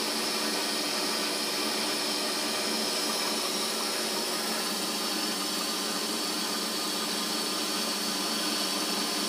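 Grizzly G3616 milling machine running steadily, a steady hum with several fixed tones, as its fly cutter takes a finishing pass across a cold-rolled steel cylinder head under power feed.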